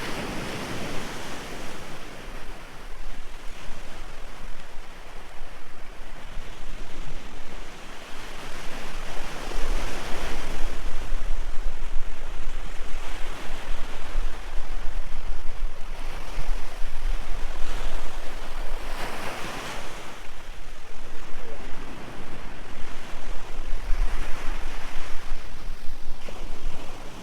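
Sea waves breaking and washing up the beach, swelling loudly every six to eight seconds, with wind rumbling on the microphone.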